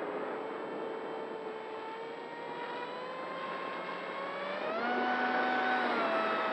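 XK A1200 RC glider's electric motor and propeller whining over a steady hiss of airflow, heard from the onboard camera. The pitch climbs slowly, then jumps higher a little under five seconds in as the throttle opens, and eases down slightly near the end.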